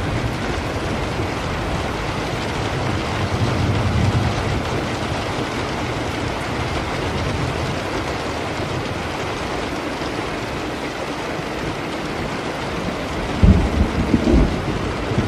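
Steady rain with rolling thunder. A low rumble swells about four seconds in, and a louder, sharper thunderclap comes near the end.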